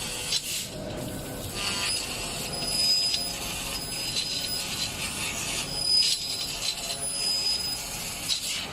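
Fiber laser tube cutting machine cutting a carbon steel square tube: a steady hiss from the cutting head with crackling, and short high whistling tones that come and go every second or so. The hiss cuts off near the end.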